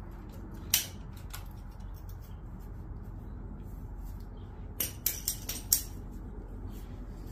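Hand ratchet and socket working bolts in a tight spot on a motorcycle engine: light ratchet clicks with sharp metal clinks of tool on metal, one about a second in and a quick run of about five near the middle to end.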